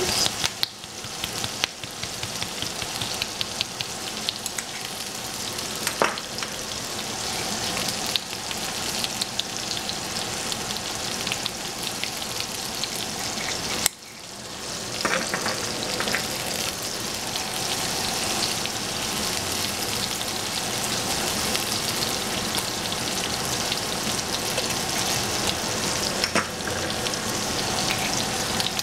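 Chopped onions sizzling as they fry in a pot, a steady dense crackle. A few sharp clicks cut through it, one about six seconds in and one near the middle.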